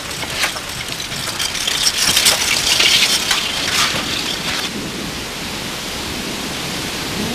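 Rain falling: a steady hiss with scattered sharp cracks and drops, heaviest a couple of seconds in.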